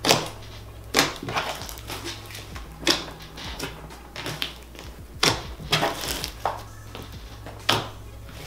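A large mass of mixed slime being pressed and folded by hand, giving irregular wet squishes and sharp air-pocket pops about once a second, over quiet background music.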